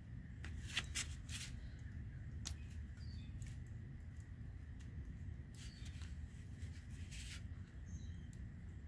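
Light clicks and knocks of metal parts being handled as a spoiler's hydraulic piston unit and screw-drive block are fitted together, several in quick succession in the first second and a half, a few more later. A steady low rumble runs underneath, with faint bird chirps.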